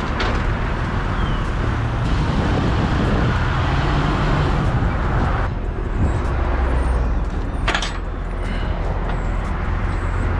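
Vehicle engines running steadily with road traffic noise, with a sharp metallic click about eight seconds in.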